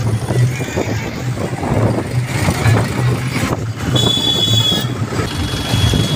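Tractor-drawn procession floats passing with engine noise under a pulsing DJ bass beat. A brief high-pitched tone sounds about four seconds in.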